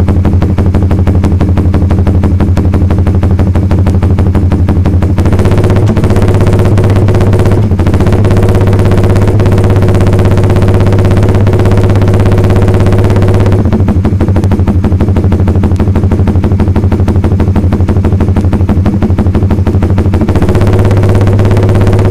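Suzuki Satria F150 Fi's single-cylinder engine running through an aftermarket R9 GP exhaust, held at steady speeds. The note steps up about five seconds in, drops back about halfway through and rises again near the end.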